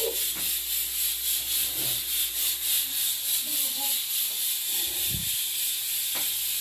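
Steady sizzling hiss of pork cooking, pulsing evenly about four times a second, with faint voices in the background.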